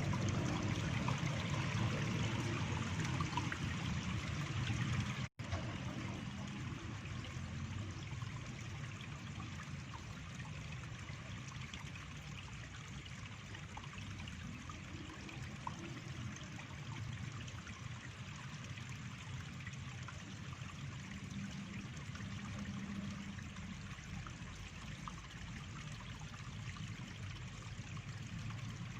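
Water running steadily in a stream or channel, a continuous trickling, with a brief dropout about five seconds in.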